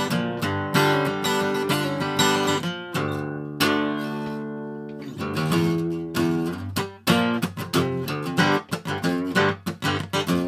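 Background music led by acoustic guitar, plucked and strummed. About three and a half seconds in, a chord is left to ring and fade, then quicker plucked notes follow.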